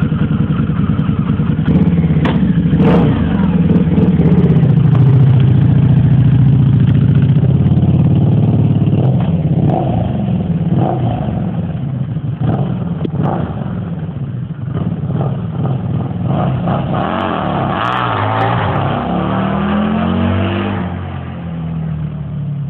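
Harley-Davidson V-Rod's liquid-cooled V-twin revving hard during a burnout with the rear tire spinning. It is held loud at high revs for several seconds, then burped through a string of quick throttle blips, and given a last rising and falling rev before it drops back to idle near the end.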